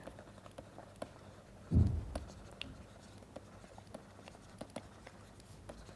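Stylus writing on a tablet: faint scattered ticks and scratches of the pen tip on the surface. A louder low thump about two seconds in.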